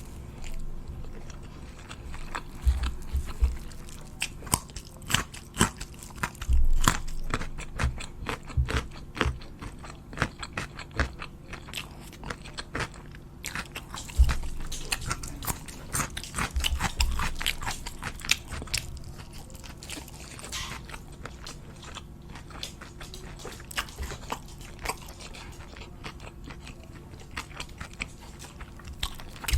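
A person eating crunchy food close to the microphone: repeated crisp bites and chewing with dense crackles, and a few heavier crunches about 3, 7, 14 and 17 seconds in.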